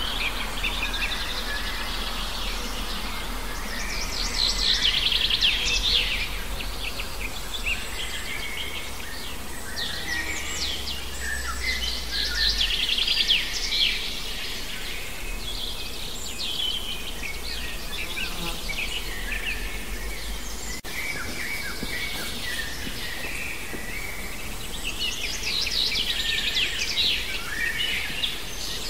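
Birds singing outdoors: chirps and quick trilled phrases that swell every several seconds, over a faint steady low hum in the first half.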